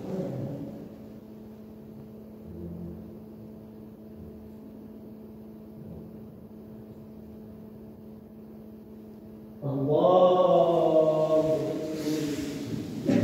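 A steady low hum under a quiet stretch. About ten seconds in, the imam's voice breaks in loud, chanting a long, drawn-out takbir of the prayer.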